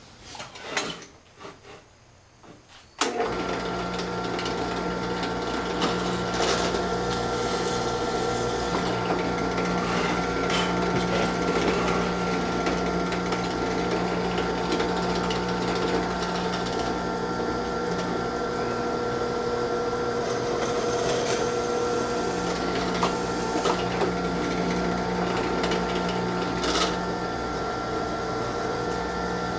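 Electric drill starting up about three seconds in and running steadily, drilling holes through sheet-metal bracket and column.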